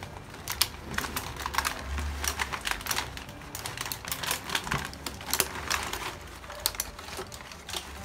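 Thin clear plastic bag crinkling and rustling in rapid, irregular crackles as it is handled and pulled over a plastic seedling tray.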